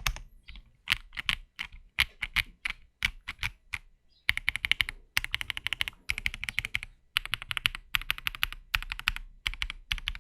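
Typing on an Akko ACR Top 75 mechanical keyboard with stock Akko Crystal Wine Red switches and MDA-profile ABS double-shot keycaps: fast runs of key clicks in bursts of about a second, with short pauses between them. The board is top-mounted with a brass plate and heavily dampened by a silicone bottom case and silicone plate foam.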